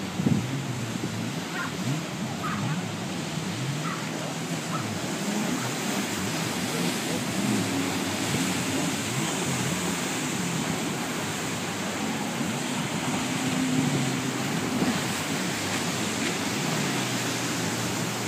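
Several jet skis running out on the water, their engines rising and falling in pitch and overlapping as the riders throttle up and back while circling, over the steady wash of surf.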